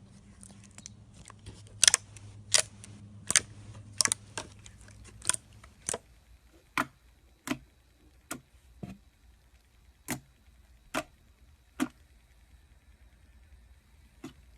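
Slime being pressed and worked, giving a series of sharp clicking pops from trapped air, about one a second. A low hum in the background stops about six seconds in.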